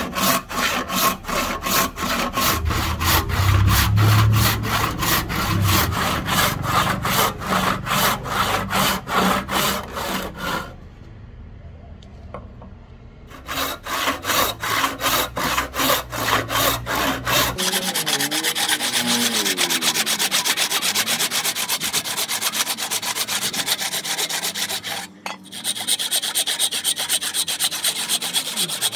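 Hand saw cutting wood in steady back-and-forth strokes, about three a second. The sawing pauses briefly a little over a third of the way in, then resumes, and from a little past halfway the strokes come faster and finer.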